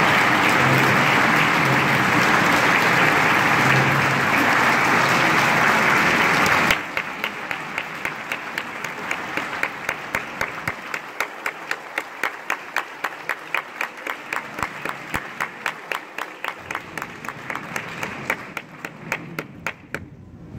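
Crowd applauding loudly. About seven seconds in, the applause suddenly thins into steady rhythmic clapping at about three claps a second.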